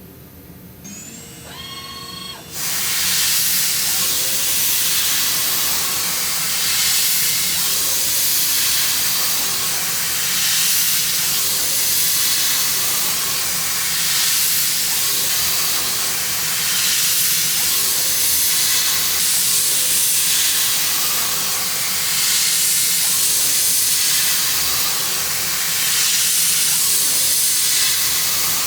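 CNC milling machine cutting with a carbide endmill: the spindle spins up with a rising whine about a second in, then a loud steady hiss sets in and runs on over a faint steady spindle tone.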